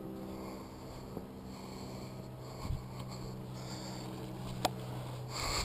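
Steady low hum with a few knocks from footsteps on loose rocks, and one sharp click about four and a half seconds in.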